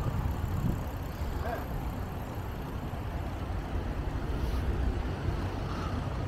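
Steady low rumble of wind on the microphone and road traffic noise while riding a bicycle.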